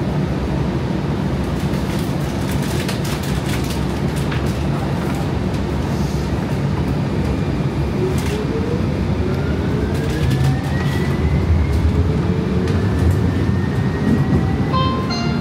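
Inside a 2019 Siemens S700 light-rail car: a steady low hum and rumble with a few clicks and rattles. About halfway through, a whine begins to rise slowly in pitch as the trolley pulls away from the station and accelerates.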